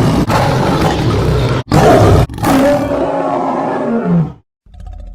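Werewolf roar sound effect: loud, rough roars broken by two short gaps, the last sliding down in pitch and stopping about four seconds in. After a brief pause a quieter growl begins near the end.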